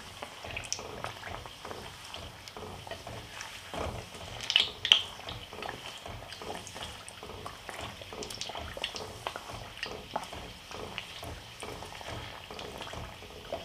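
Potato-stuffed kachori deep-frying in hot oil: a steady fine crackling sizzle as a slotted spatula presses and turns it in the oil. Two louder sharp clicks stand out a little under five seconds in.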